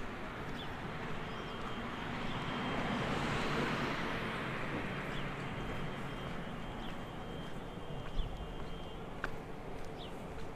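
A vehicle passing, its noise swelling and fading over a few seconds, over outdoor city ambience with a few short bird chirps.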